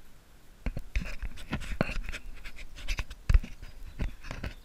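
Irregular splashes and sloshing of shallow river water around a landing net as a hand holds a brown trout in it, starting about half a second in, with sharp knocks of uneven loudness.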